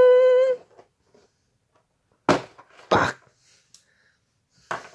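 A cardboard model-kit box handled and set down on a wooden desk, making two short knocks with a rustle about two and three seconds in and a lighter one near the end. A steady held note stops about half a second in.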